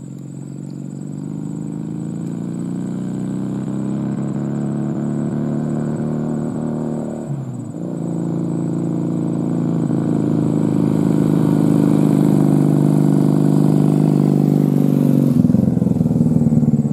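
Diesel dump truck engine running as the truck passes on a dirt road, growing steadily louder, with a short break in the engine note about halfway through.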